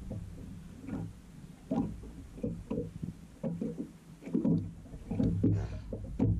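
Small waves lapping and slapping against the hull of an anchored fishing boat, in irregular low knocks over a steady low rumble.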